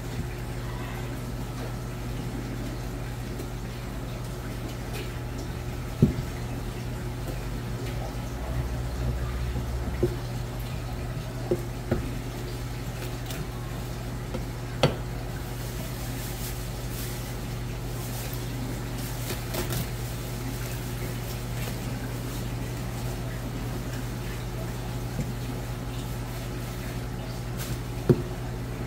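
Sashimi knife cutting and skinning a flatfish fillet on a plastic cutting board, with a few sharp knocks of the blade or hand on the board, the loudest about six seconds in and near the end. A steady low machine hum runs underneath.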